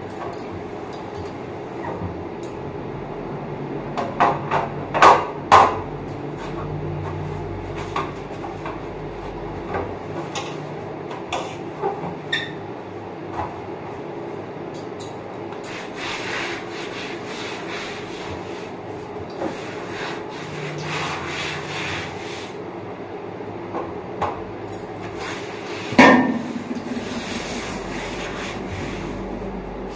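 Black metal pan supports of a steel two-burner gas stove knocking and clattering as they are handled and set down on the stove, with a cloth rubbing over the stove top. There is a cluster of knocks about five seconds in and the loudest knock near the end, over a steady background hum.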